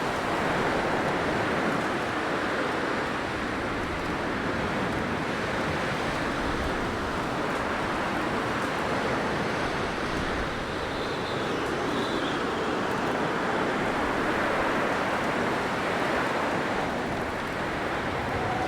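Blizzard wind blowing steadily, a dense hiss that swells and eases slightly, with a faint high whistle twice around the middle.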